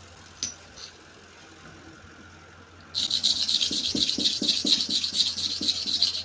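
Clipper blade rubbed by hand on a wet sharpening stone, starting about three seconds in: a gritty scraping in quick back-and-forth strokes.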